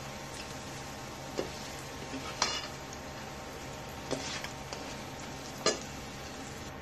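Hot oil sizzling steadily in a nonstick frying pan as fried sweet potato sticks are scooped out with a slotted turner. A few sharp clinks and scrapes of the turner against the pan stand out, the loudest about two and a half seconds in and near the end.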